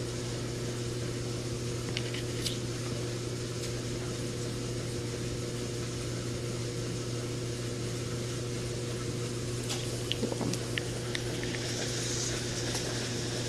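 Steady low mechanical hum of a running appliance in the room, with a few faint light clicks from handling a card, about two seconds in and again near the end.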